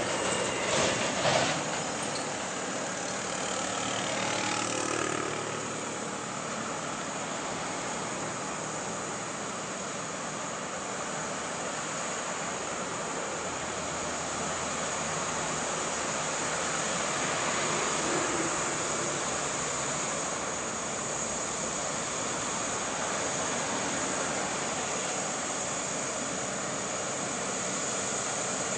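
Scania P380 truck's diesel engine labouring slowly up a long climb under a heavy low-loader load, a steady drone mixed with passing motorcycles and cars. A few sharp knocks sound in the first second or two.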